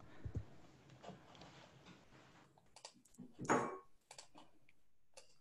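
Computer keyboard and mouse clicks: a handful of short, scattered taps over faint room tone, the loudest a little past halfway.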